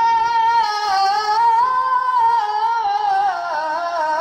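Male Quran reciter's voice in melodic mujawwad recitation, holding one long, ornamented note whose pitch wavers up and down in a melismatic run.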